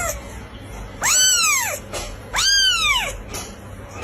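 A cat meowing: two drawn-out meows a little over a second apart, each rising and then falling in pitch.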